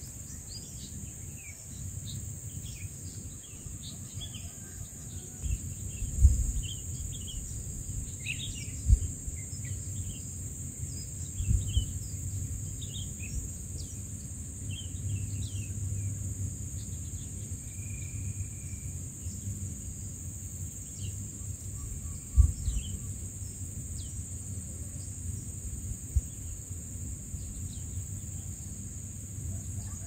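Natural ambience: a steady high insect drone, with scattered short bird chirps over it. Underneath runs a low rumble with a few dull thumps.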